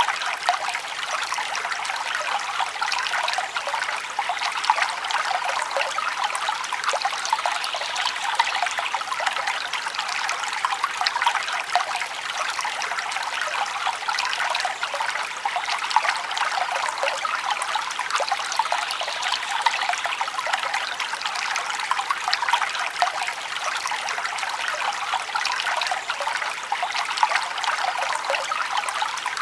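Forest stream trickling and babbling over stones, a steady bright rush of water with small splashes.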